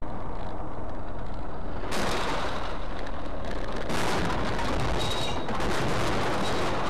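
Dash-cam audio of a car in a crash: loud, distorted road and wind noise that from about two seconds in turns into a dense run of crashing impacts and rattling as the car leaves the road and tumbles.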